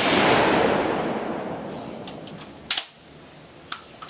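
The report of a Swiss K31 rifle's 7.5 mm shot rolling away across the range and fading over about two and a half seconds. It is followed by three sharp metallic clicks, about a second apart, as the rifle's straight-pull bolt is worked.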